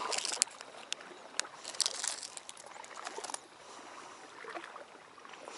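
Small clicks and rustles of hands handling a fishing hook packet and terminal tackle, scattered through the first three seconds or so. After that only a faint steady hiss remains.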